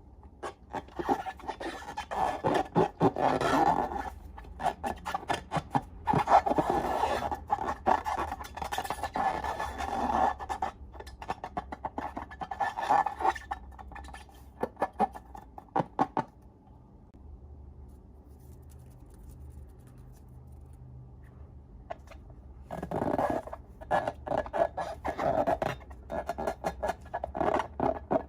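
Slime being squeezed and worked by hand, giving wet, sticky crackling and clicking in several long bursts, with a quieter pause about two-thirds of the way through.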